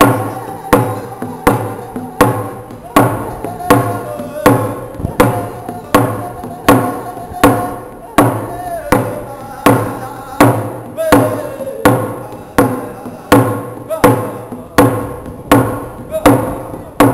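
A single-headed rawhide hand drum struck in a steady, even beat, about one and a half strokes a second, while a man sings a Native American hand drum song over it.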